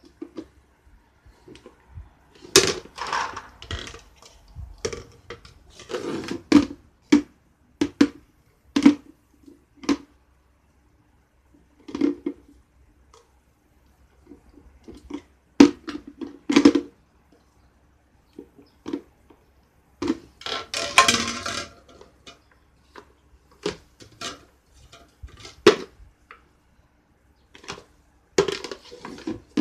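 A plastic countertop blender handled by small hands, unplugged so the motor is silent: irregular clunks and clatters of the jar knocking and twisting against its base, with a longer scraping rattle about twenty seconds in.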